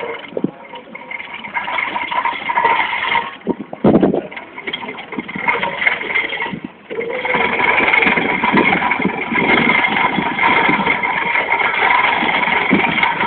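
Tractor engine running, with a sharp loud knock about four seconds in; after a brief lull just before seven seconds it runs louder and steadier.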